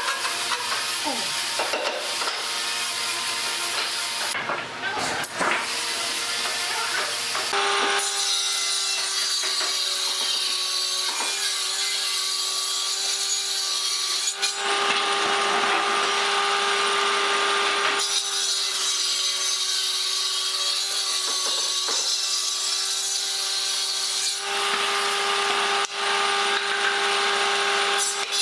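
Table saw with a circular blade ripping knotty softwood boards lengthwise: a steady blade whine under the hiss of the cut, changing abruptly several times.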